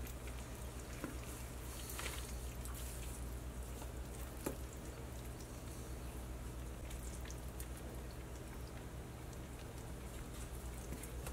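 Faint scattered ticks and rustles of hands working string around a raw chicken on paper, one slightly sharper tick about four and a half seconds in, over a steady low hum.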